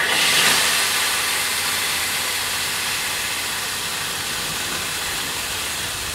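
Marinated pork neck sizzling in hot oil in a wok. The sizzle starts suddenly as the meat is laid in, then eases off slightly.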